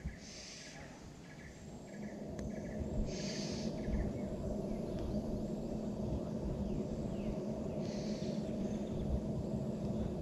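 Outdoor garden ambience: a steady low rush that grows louder about two seconds in. Over it are short, high, hissy calls every few seconds, likely insects, and a few small chirps early on.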